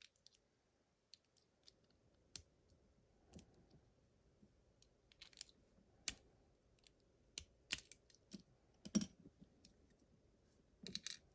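Faint, irregular clicks and taps of small metal parts being handled with tools as a pin-tumbler lock is taken apart.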